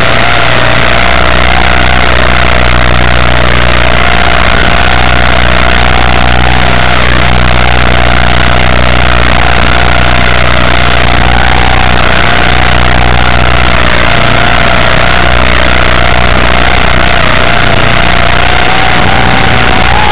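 Electric motor of a Walkera RC model running steadily, a loud whine that wavers a little in pitch as the throttle shifts, over a steady low hum and hiss.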